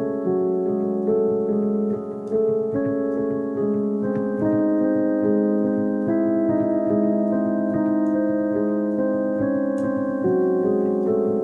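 Background piano music: sustained notes and chords changing every second or so.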